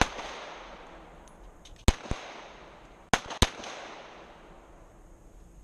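Semi-automatic pistol firing: a single shot about two seconds in, then two quick shots about a second later, each crack trailing off in a short echo.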